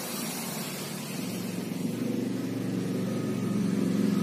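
A motor vehicle's engine running, its low hum growing steadily louder.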